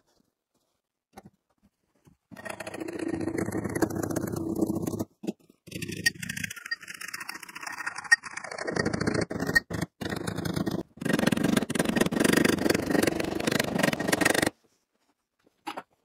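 Hammer-and-dolly work on a steel door skin: quick runs of taps as the skin's lip is rolled over the door shell's edge, in several stretches broken by abrupt stops.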